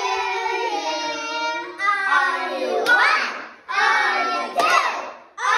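A group of children singing together in unison, with short breaks between phrases and a couple of sharp hand claps.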